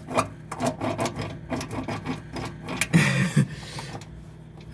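Rapid, irregular clicks and knocks from an old, rusty microwave oven being handled and inspected.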